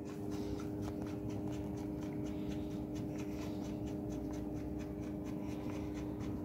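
Faint handling sounds of hands working on a Kansai Special sewing machine's head while fitting the presser foot: light scratching and small irregular clicks of metal parts, over a steady low hum.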